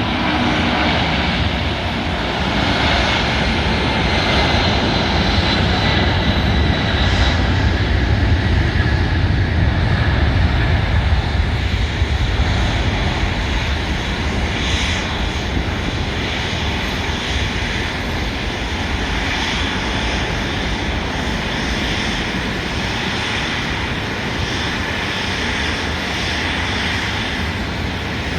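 McDonnell Douglas MD-10-30F tri-jet freighter's General Electric CF6-50 turbofans at takeoff power: a heavy, steady jet roar. It swells about a third of the way in, then slowly eases, with a faint high whine falling in pitch during the first several seconds.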